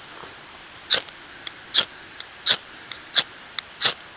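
Ferrocerium rod (fire steel) scraped with the sharp-edged spine of a small scandi-ground neck knife: five short, sharp scrapes about three-quarters of a second apart, with faint clicks between them.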